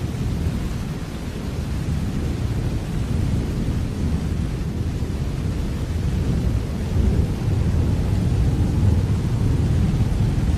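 Steady rain with a continuous low rumble beneath it, a little louder from about seven seconds in.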